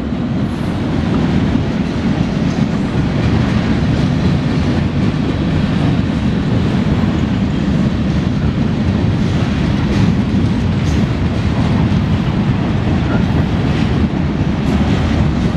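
CSX mixed freight train's cars (tank cars, covered hoppers and gondolas) rolling past: a steady low rumble of wheels on rail, with a few light clicks.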